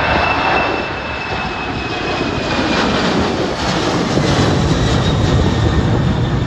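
Jet airliner engines running loud as the plane passes close by, a steady rumble under a high whine that slowly falls in pitch.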